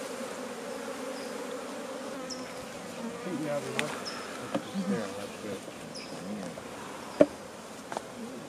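Honeybees buzzing in a steady, wavering hum around an open hive as a frame of honey and bees is lifted out. A sharp click about seven seconds in stands out above the hum.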